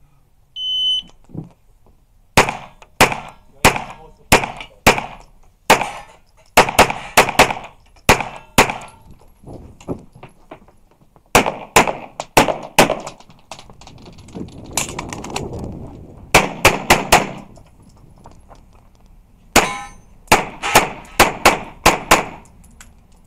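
Short high shot-timer start beep, then a semi-automatic pistol firing many rapid shots in quick pairs and strings, with short pauses between strings and a longer break partway through.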